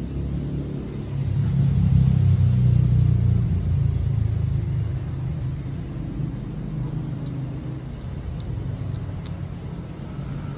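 A motor vehicle's engine rumbling, growing louder about a second in and easing off after a few seconds to a lower steady level. A few faint ticks sound near the end.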